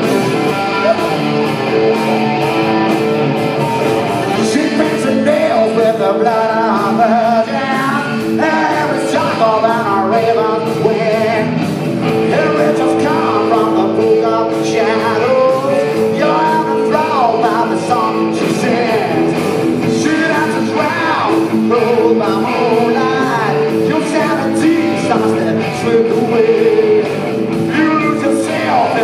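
Live rock band playing loudly: electric guitars, bass and drums, with a man singing over them from about four seconds in.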